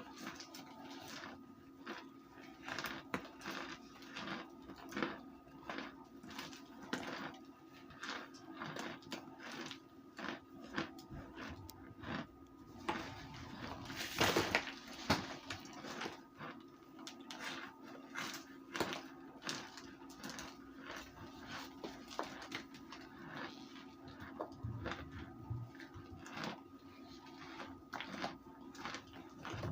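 Crunching and chewing of baked or microwaved cornstarch: irregular crisp crackles, with a louder crackling stretch about halfway through, over a steady low hum.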